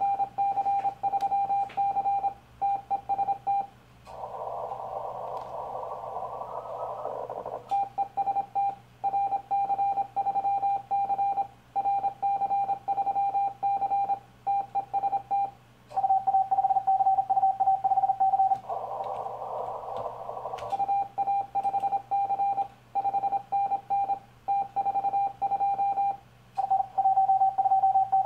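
Morse code from a Yaesu FT-1000MP transceiver: a steady mid-pitched beep keyed on and off in dots and dashes as a CQ call is sent on the 40 m band. Twice, about 4 s and about 19 s in, and again at the very end, the keying stops and a few seconds of filtered receiver hiss are heard while listening for a reply.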